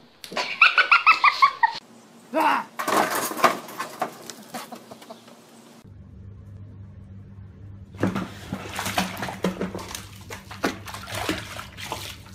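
Two cats tussling on a tile floor: a quick string of about eight short high cries near the start, then scuffling. After a cut, a steady low hum with splashing and scrabbling as a kitten goes into a bathtub of water and claws its way back out.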